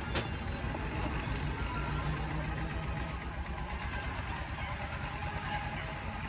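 Horseless carriage engine running steadily with a low, even rumble, with a sharp click just after the start.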